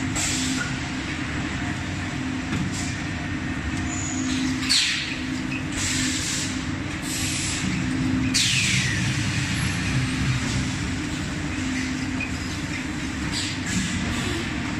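Automatic motorcycle tyre building machine running through its building cycle: a steady machine hum with a tone that keeps switching on and off, broken by several short sharp hisses, the loudest about eight seconds in.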